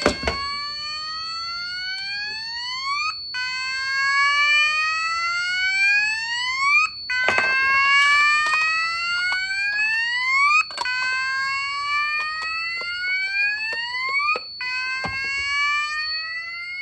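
Electronic fire alarm sounder on a conventional 12-volt panel, sounding in alarm after a manual call point is pressed. It repeats a slow rising whoop about every four seconds, over a thin steady high-pitched tone.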